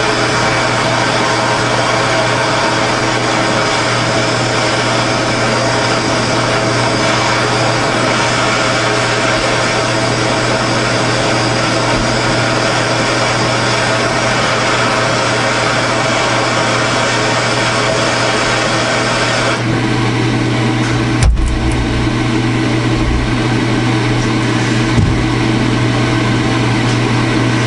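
Handheld gas torch burning with a steady hiss as it heats the outer joint cup of a Honda S2000 rear axle to free a stuck C-clip, over a constant low hum. The hiss thins about two-thirds of the way through, and one sharp knock comes shortly after.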